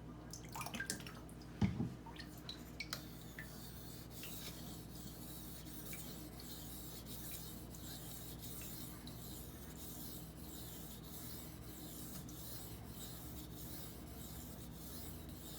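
A 20CV steel knife blade stroked back and forth over a wet 4000-grit Norton water stone, a steady run of light scraping passes after a few small clicks in the first three seconds. The passes are reestablishing an edge apex that was shaved off.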